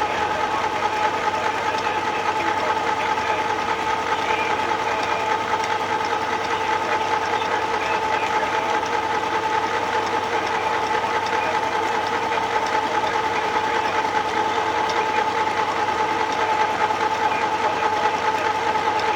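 Electric sewing machine running continuously at a steady speed, its motor giving a steady whine.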